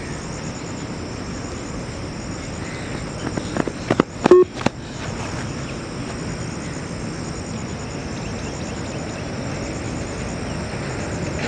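A single short electronic beep from the Yo-Yo test recording about four seconds in, the shuttle's turnaround signal, with a few sharp clicks just around it. Under it, steady outdoor background noise with insects chirping.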